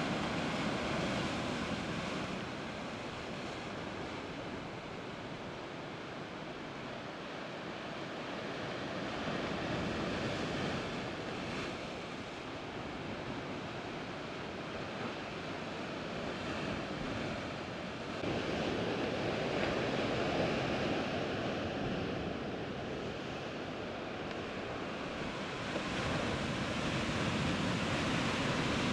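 Sea surf washing against shoreline rocks, swelling and easing every several seconds, with wind noise on the microphone.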